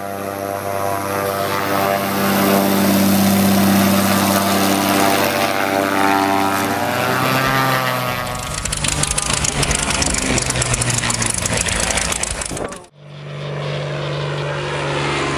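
Motor and propeller of a Seawind RC amphibian model plane running steadily on the ground. About seven seconds in, the pitch rises as the throttle opens, and the sound becomes a louder, noisier rush as the model rolls off along the grass strip. After a sudden cut, the propeller is heard running steadily again in flight.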